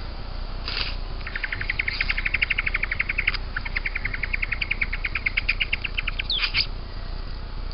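Young satin bowerbird giving a rapid churring call: a fast run of dry ticks, about ten a second, with a short break partway, opened and closed by a brief harsh buzzy note.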